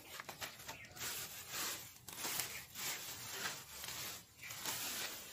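Grass and weeds rustling and tearing as they are pulled up by hand, in a series of rustles about a second apart.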